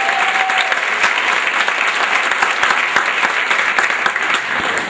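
Theatre audience applauding steadily, a dense, even clatter of many hands clapping.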